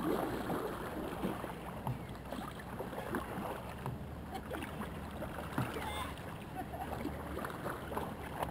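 Wooden kayak paddle dipping into lake water, with irregular small splashes, drips and water lapping at the kayak's hull.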